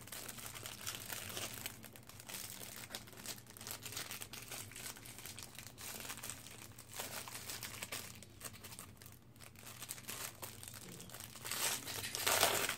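Plastic packaging crinkling and rustling as it is handled, with a louder stretch of crinkling near the end.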